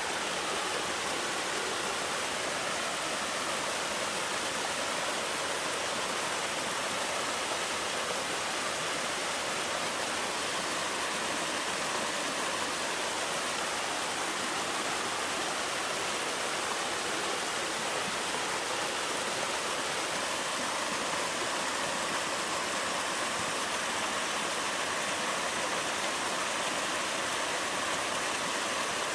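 Mountain waterfall rushing and splashing in a steady, even roar of falling water.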